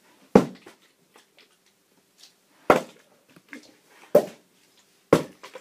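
Partly filled plastic water bottles flipped and landing on a carpeted floor: four separate thuds, the first about a third of a second in and the rest a second or more apart.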